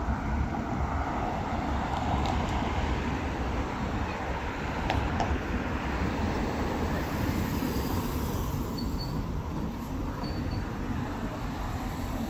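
Steady city traffic noise: a low rumble and hiss of passing vehicles, with a few faint ticks and two short high beeps later on.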